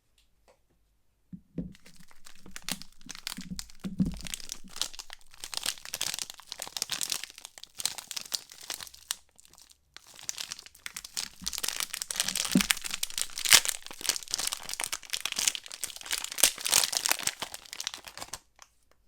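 Soap wrapper being crinkled and torn open by hand: dense crinkling and tearing that starts about a second in, breaks off briefly about halfway and resumes, with a few soft low thumps.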